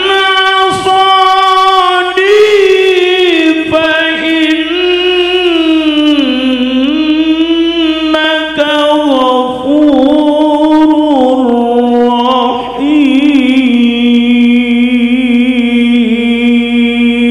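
Male qari reciting the Quran in the melodic tilawah style into a handheld microphone. It is one long, richly ornamented phrase held on a single breath, its pitch stepping slowly downward, and it ends near the end.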